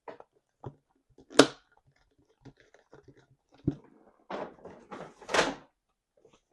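Close-miked eating sounds: scattered mouth clicks and smacks, a sharp click about a second and a half in, a low thud a couple of seconds later, and two louder rustling bursts near the end.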